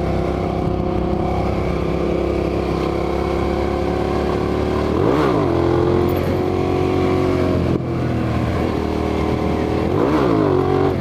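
Motorcycle V-twin engine with a full exhaust running steadily at road speed, the revs dipping sharply and climbing back about five seconds in and again near the end. Wind rushes over the helmet microphone throughout.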